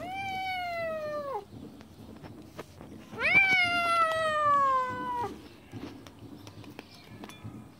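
Siamese kitten giving two long, drawn-out meows while eating fish from a bowl, the second louder and longer, each sliding down in pitch: a food-guarding call. Faint clicks between the calls.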